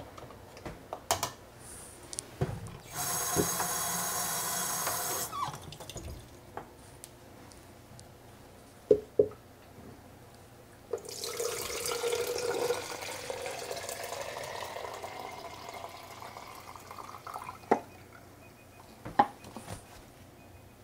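Water running from a tap into a container, in two spells: a short one a few seconds in and a longer, weaker one from about eleven seconds. A few sharp knocks of containers set down on the counter come between them.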